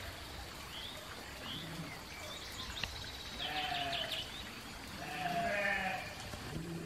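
Soay sheep bleating, three calls spaced about two seconds apart.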